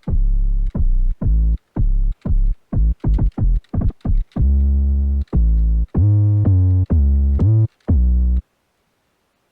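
An 808 bass preset from the ANA 2 synthesizer playing a trap-style pattern: short punchy notes and a quick run of repeated notes, then longer held notes that slide in pitch. It stops about a second before the end.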